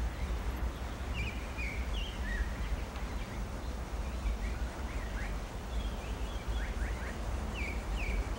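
Small birds chirping in short, scattered calls over a steady low background rumble of outdoor ambience.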